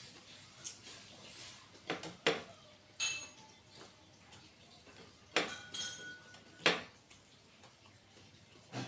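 About six short clinks and knocks of a plate as food is picked off it by hand; two of them leave the plate ringing briefly.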